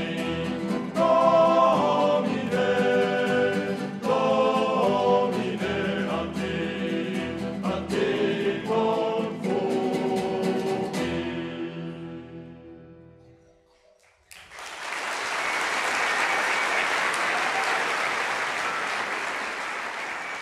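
Male vocal group singing in harmony to strummed guitars and accordion, ending on a held chord that fades out about thirteen seconds in. Audience applause then breaks out abruptly and keeps going.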